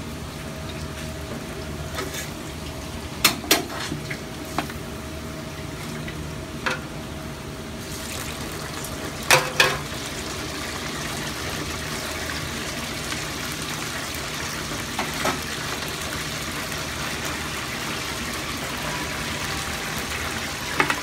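Beaten egg sizzling in a rectangular tamagoyaki pan over a gas burner, getting stronger about eight seconds in. Chopsticks click and knock against the pan now and then, loudest as two quick pairs about three and nine seconds in.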